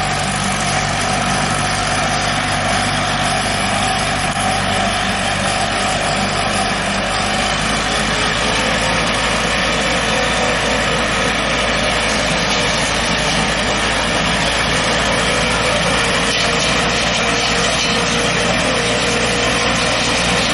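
Tractor engine running steadily while powering a boom-mounted hydraulic disc tree pruner, its spinning saw discs trimming a row of fruit trees.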